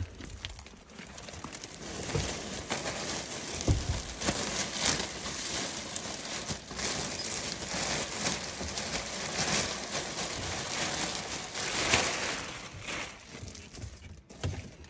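Plastic bags of small plush toys rustling and crinkling as the toys are tipped into a claw machine's cabinet, a dense, continuous crackle that dies down near the end.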